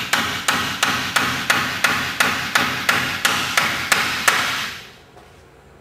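Hammer driving a nail up into the timber head stop of a door jamb: a steady run of about three sharp blows a second, stopping about four and a half seconds in.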